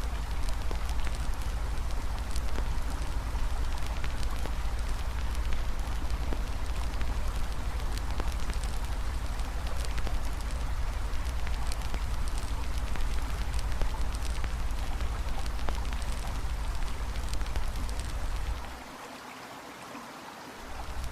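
Campfire crackling, with many small sharp pops over a steady rushing background of river water and a low rumble. Near the end the low rumble drops out and everything goes quieter for about two seconds, then comes back.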